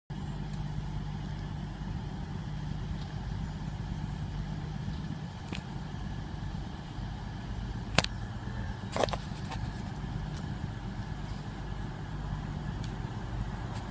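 Steady low diesel drone of an approaching Class 43 HST power car, still some way off. There is a sharp click about eight seconds in and another a second later.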